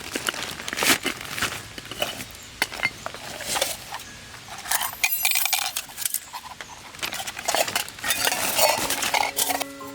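Lightweight metal camping gear clinking and clattering as it is handled, with many sharp knocks and a brief metallic ring about halfway. Music starts just before the end.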